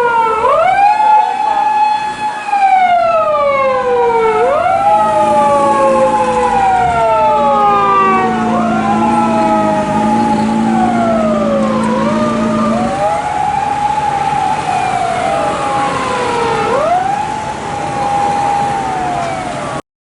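Two Japanese police car sirens, one on an unmarked Toyota Allion, wailing together slightly out of step. Each rises quickly, holds, then falls slowly, in cycles of about four seconds. The sound cuts off suddenly near the end.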